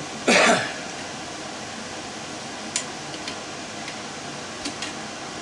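Hot tub pump motor parts being handled during teardown: one short, loud clatter near the start, then a few light ticks and taps.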